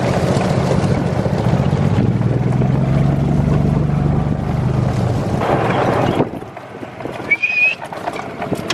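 Golf cart running as it drives along, a steady engine hum that rises slightly, then cuts off about six seconds in, just after a brief rush of noise.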